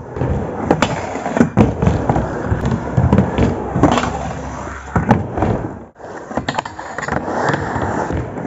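Skateboard with new Dater 159 trucks riding a ramp: the wheels roll with a steady rumble, broken by sharp clacks and knocks of the board against the ramp. The sound drops out briefly about six seconds in.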